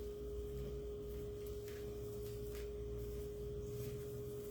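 A steady single-pitched hum in the room, with a few faint soft ticks over it.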